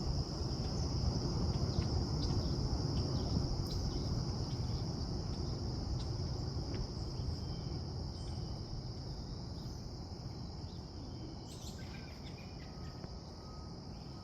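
Steady high-pitched chorus of insects, crickets or the like, over low background noise that slowly fades.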